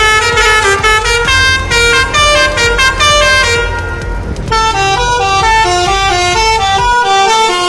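Indonesian bus "telolet" musical air horn playing a quick stepping tune of several notes, with a low rumble underneath that drops away near the end. A brief hiss comes a little before halfway.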